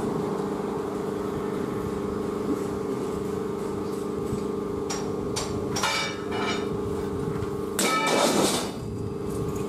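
Steel parts of a welded iron cage wheel frame knocking and ringing as long steel strips are handled against it: a few sharp clanks past the middle and a louder ringing clank near the end, over a steady hum.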